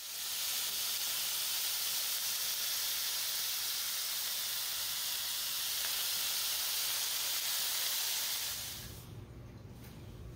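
Cherry tomatoes and garlic sizzling in oil in a hot pan: a steady hiss that cuts off abruptly near the end.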